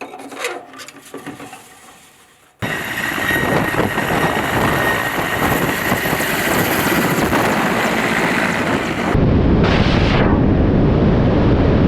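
A few light metallic clicks and clinks, then an abrupt change to loud, steady military helicopter turbine and rotor noise with a high whine. About nine seconds in it shifts to a deeper, heavier rumble.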